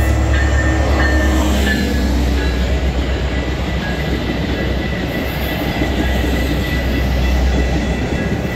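Metra commuter train passing close by: the diesel locomotive's engine running as it goes by in the first couple of seconds, then the steady rumble and clickety-clack of the bilevel gallery cars' wheels on the rails.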